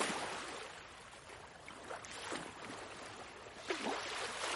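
Recorded ocean waves washing in: a soft, even hiss that ebbs after the start and swells again near the end.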